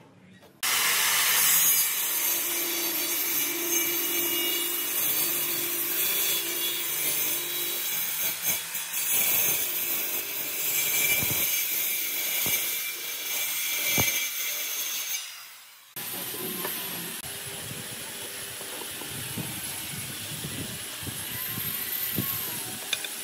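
Handheld circular saw running and cutting along the edge of a wooden desk top, a dense rasping noise that starts suddenly about a second in and winds down after about fifteen seconds. After that a quieter steady noise with a faint wavering high whine continues.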